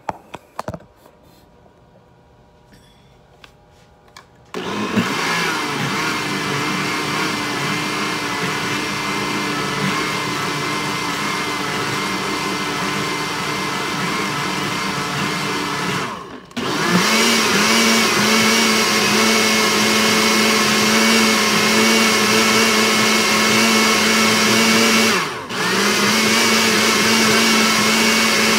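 Countertop blender blending fruit, yogurt and milk into a smoothie. After a few clicks and knocks, the motor starts about four and a half seconds in and runs steadily; it stops for a moment twice, and after the first restart runs louder with a steady hum.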